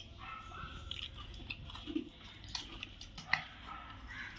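Faint eating sounds: chewing, with scattered light clicks and taps.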